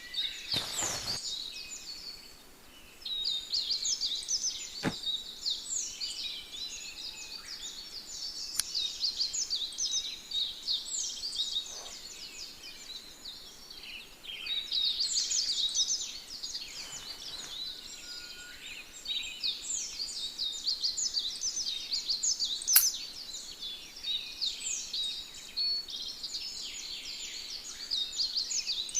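Chorus of songbirds chirping and trilling rapidly and almost without pause, with a few sharp clicks over it, the loudest about three-quarters of the way through.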